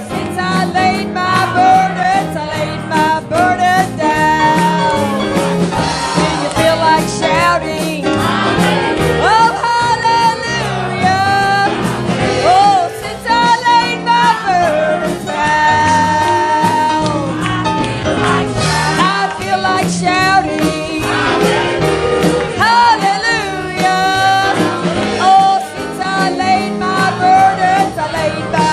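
Live gospel music: a singer over a full church band with a steady beat.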